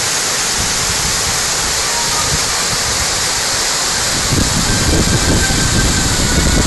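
A waterfall's steady rush of falling water. About four seconds in, a heavier, uneven low rumble joins it.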